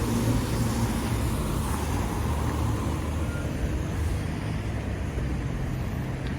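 Steady rumble of a motor vehicle on the move, a low engine and road hum with a rushing noise above it.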